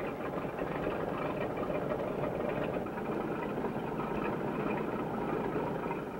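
Military vehicle engine running steadily, heard as a dull, even noise on an old film soundtrack; it falls away at the very end.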